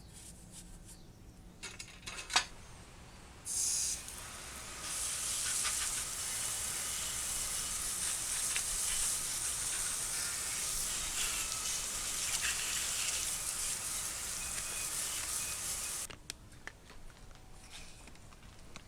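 A spray hissing steadily onto a bicycle chain and drivetrain for about ten seconds, after a sharp click and a short first burst, to wash off the grime.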